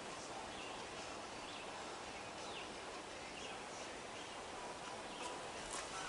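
Quiet forest ambience: a steady soft hiss with a few short bird chirps scattered through.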